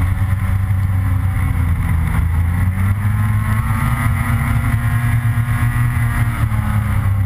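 Snowmobile engine running steadily at trail speed, its pitch drifting up and down a little as the throttle changes.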